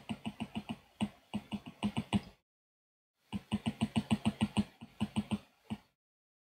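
Rapid, even clicking, about eight clicks a second, in two runs with a one-second pause between them. The strokes on the digital notes are being undone one by one.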